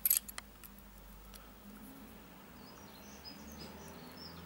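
A few light metallic clicks from a steel feeler gauge blade tapping and scraping against the rocker-arm adjuster as it is tried in the valve clearance. Then quiet room tone with a few faint high chirps in the second half.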